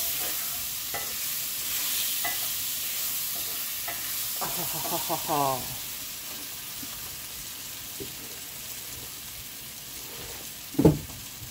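Acorn squash and apples sizzling in a skillet as they sauté, a steady hiss that slowly grows fainter. A single sharp knock near the end.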